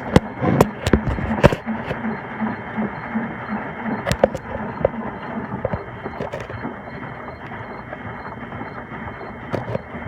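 Miele W1918 washing machine running: a steady rushing noise with a regular low pulse about two to three times a second, and a few sharp knocks in the first second and a half.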